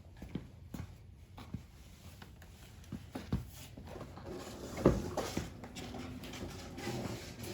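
Handling noise: scattered light knocks and clatter, with one louder knock about five seconds in followed by some rustling.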